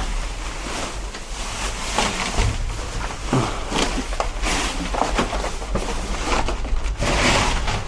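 Rummaging through junk in a dumpster: irregular knocks, clatters and rustles of objects being moved and handled, over a low steady rumble.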